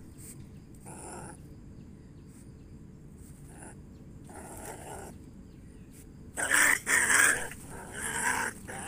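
A squirrel caught in a net giving harsh growling calls in short bursts, the loudest two coming about two-thirds of the way through: the distress calls of a trapped animal.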